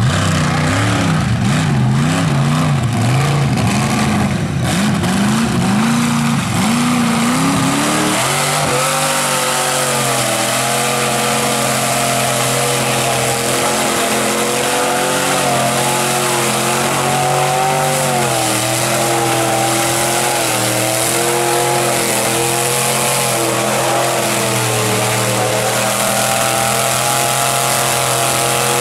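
Lifted Chevrolet Silverado mud truck on tractor tires revving in repeated rising and falling bursts, then held at high revs with a steady, slightly wavering engine note as it ploughs through deep mud, over a loud hiss of spraying mud.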